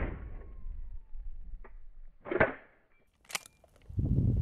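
The blast of a 20 gauge pump-action shotgun fading away at the start, then a few sharp clacks about two seconds in as the pump action is worked between shots, and a low rush near the end.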